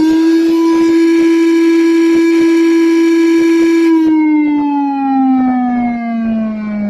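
Homemade electronic e-bike sound-effect circuit playing an imitation big-bike engine note through a speaker: a loud, steady pitched tone that, about four seconds in, begins sliding steadily lower.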